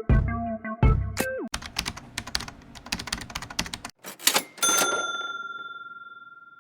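Electronic music with a heavy beat stops about a second and a half in, giving way to a rapid run of sharp clicks. Then come two knocks and a single bell-like ding that rings out and fades away.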